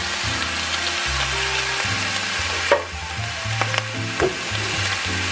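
Sliced corned beef sizzling in a nonstick frying pan, a steady hiss, over background music with a low bass line. A few light clicks about three to four seconds in.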